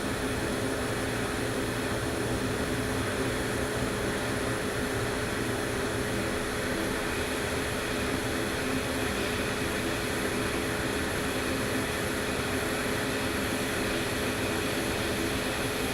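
Hot-air rework station blowing steadily, its air noise carrying a steady low tone from the blower, while it heats a chip until the solder balls beneath it melt onto the board's pads.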